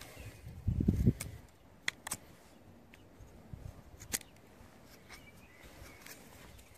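A few sharp small clicks and scrapes from a steel grafting knife picking splinters out of the split in a cut quince stock. A brief low rumble about a second in is the loudest sound.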